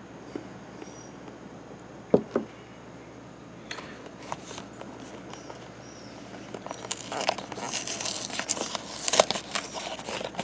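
Plastic and paper packaging crinkling and tearing close to the microphone, denser and louder from about seven seconds in, with two soft knocks about two seconds in. Faint high chirps repeat in the background in the first half.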